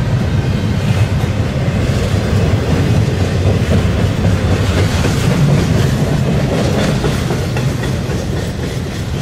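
Double-stack container well cars of a freight train rolling past: a steady rumble of steel wheels on rail, with some clickety-clack.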